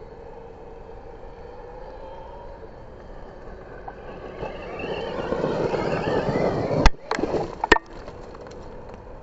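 Losi Promoto-MX electric RC motocross bike riding past on gravel: the motor whine rises and falls in pitch as the knobby rear tyre spins and throws up loose gravel, growing louder about four seconds in. About seven seconds in come three sharp hits, stones from the roost striking close to the camera, then the sound drops back.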